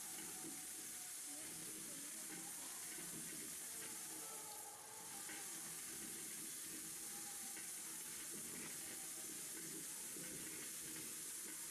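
Steady hiss like static or white noise, strongest in the highest pitches, holding level throughout with a brief slight dip about five seconds in.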